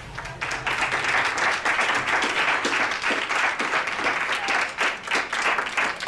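A group of people applauding: dense, quick hand clapping that starts about half a second in and keeps up steadily.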